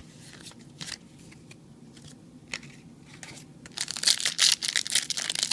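A few light ticks of cards being handled, then from about four seconds in a loud, dense crinkling and tearing of a foil Yu-Gi-Oh! booster pack wrapper being torn open.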